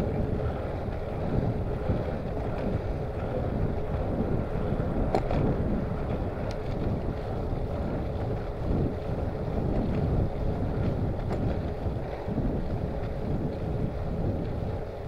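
Wind buffeting the microphone of a handlebar-mounted camera on a moving bicycle, a steady rushing that swells and dips, with a few faint clicks.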